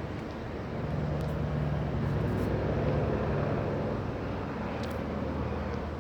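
Helicopter droning overhead in a steady low hum that grows louder about a second in and eases off near the end.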